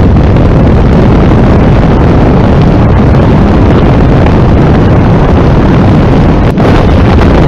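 Biplane engine and propeller in cruise flight, heard through heavy wind buffeting the microphone in the open cockpit. The sound is a loud, steady, distorted rush, heaviest in the low end.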